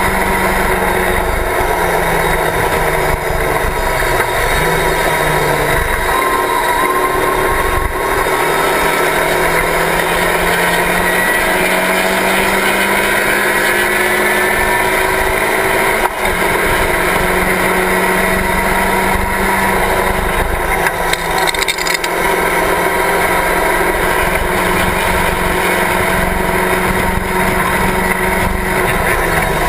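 A Locost race car's engine running hard at racing speed, heard from inside its open cockpit, the revs climbing and then dropping back several times as the driver changes gear, with wind rumble over the car.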